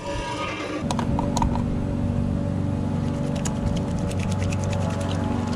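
Background music, a steady low chord that comes in about a second in and holds, with light clicks and taps over it.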